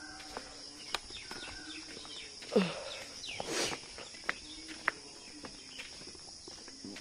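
Steady high-pitched drone of insects, with scattered light clicks and a brief falling sound about two and a half seconds in.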